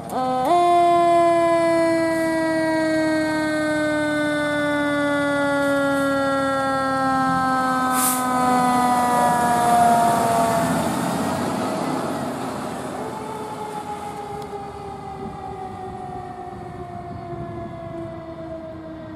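Siren of a 2015 KME Severe Service fire engine winding up sharply, then falling slowly and steadily in pitch as it runs down. It is loudest as the truck passes about ten seconds in. The siren winds up again more faintly a few seconds later and falls away as the truck drives off.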